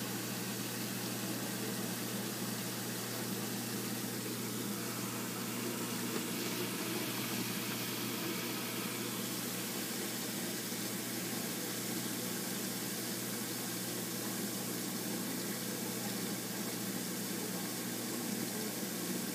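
Dry ice bubbling in water in a frosted plastic cup: a steady bubbling hiss with a low steady hum underneath.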